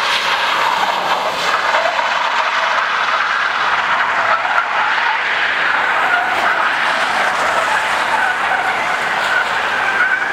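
Car tyres screeching as a car drifts sideways on asphalt: a long, unbroken squeal that wavers in pitch.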